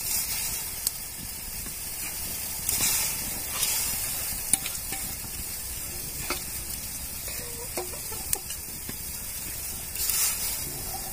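Soaked red lentils being poured and scraped from a metal bowl into water in a metal kadai, splashing in a few louder bursts, about three times, over a steady hiss, with a few sharp clinks of metal.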